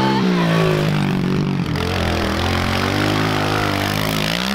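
Small four-stroke pit bike engines revving as the bikes ride past on a dirt track. The engine pitch dips about two seconds in and climbs again near the end.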